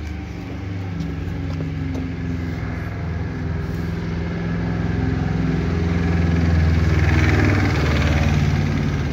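A motor vehicle's engine running steadily in the street. It grows louder to a peak about seven seconds in, then eases off.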